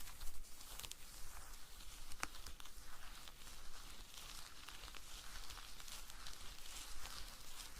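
Close-miked ASMR trigger sounds: a soft, irregular rustling hiss dotted with many small clicks and crackles, one sharper click about a third of a second in and another about two seconds in.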